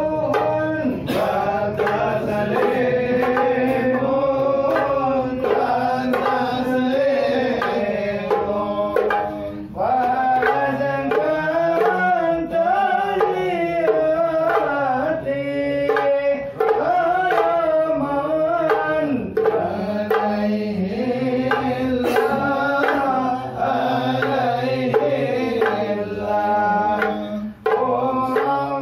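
Hadrah Ishari performance: a group of singers chanting Arabic sholawat together over rapid, steady strokes of hand-struck terbang frame drums.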